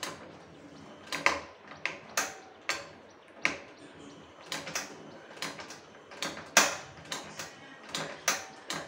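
Steel ladle clicking and tapping against an iron kadhai holding milk and jaggery, a string of sharp metallic taps about one or two a second at uneven spacing.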